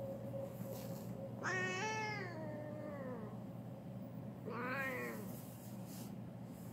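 A domestic cat meowing twice: a long meow about a second and a half in that falls in pitch as it ends, then a shorter one a few seconds later.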